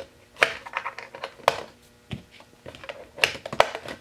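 Playmobil plastic toy wheels being pressed and snapped onto a plastic wall holder: a string of sharp plastic clicks and knocks, the loudest about half a second in, at about a second and a half, and two close together near the end.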